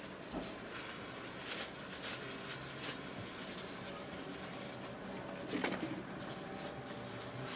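Handheld garment steamer running steadily while steaming a synthetic wig inside a plastic bag. The bag crinkles now and then, most sharply about five and a half seconds in.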